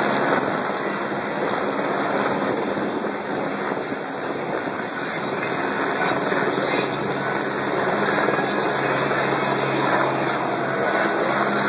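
Helicopter flying low overhead, its rotor and engine making a steady drone.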